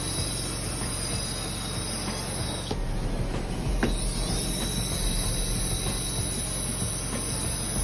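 Judson truck-mounted carpet extractor pulling suction through a Vantool wand worked over carpet: a steady rushing hiss over a low machine hum. The high hiss drops away about three seconds in and returns after a click about a second later.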